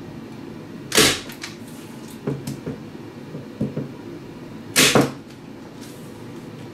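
Two sharp snaps of a stapler driving staples through poster board into the wall, about a second in and again near five seconds in (the second one doubled), with lighter clicks and handling noise between.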